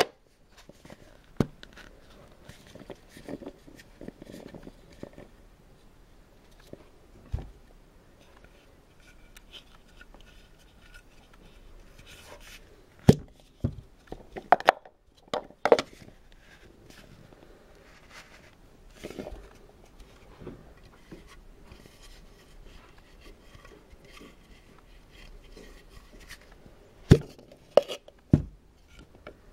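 Painted wooden nesting-doll pieces being handled: sharp wooden clicks and knocks as halves are pulled apart, fitted together and set down, with quiet rubbing and scraping of wood between. The knocks come in clusters, several in the middle and two near the end.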